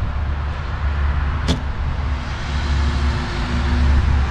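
Heavy diesel machinery running steadily, with a low rumble and a steady hum that comes in about two and a half seconds in. A single sharp click sounds about a second and a half in.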